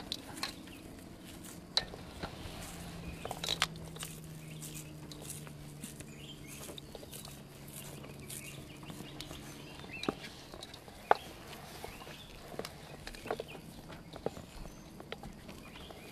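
Hands squeezing and packing a crumbly food mash into balls in a stainless steel bowl, with scattered short clicks and knocks. A faint low hum runs under it for several seconds in the middle.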